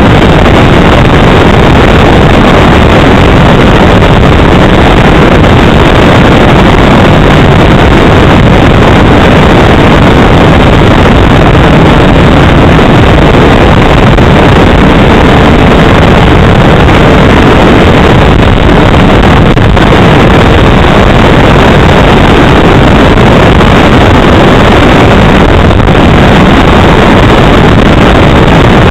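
Onboard sound of a NexStar RC model plane in flight: its motor running and wind rushing over the microphone, heard as a loud, steady, distorted noise with no clear pitch.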